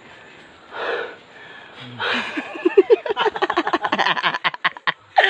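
A hiker out of breath from a steep uphill climb: a heavy exhale, then a fast run of short, breathless bursts of laughter.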